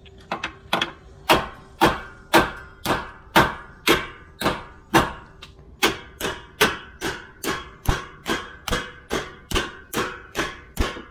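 Steel hammer blows on a rusted steel hinge, struck steadily about twice a second and quickening toward the end, each blow ringing: driving out a rear hinge whose pin has snapped off and rotted through, on a 1995 Range Rover Classic's rear cross member.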